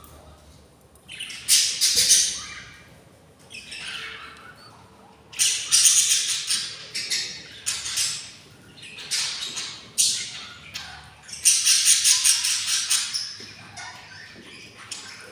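Budgerigar chicks begging for food with raspy, hissing squawks, in about half a dozen bouts separated by short pauses.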